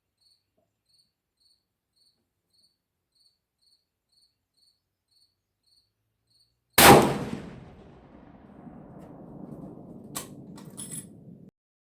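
Crickets chirping faintly and evenly, then a single loud .416 Ruger rifle shot from a Ruger M77 Guide Gun about seven seconds in, its report dying away over a second or two. A few sharp metallic clicks follow near the end.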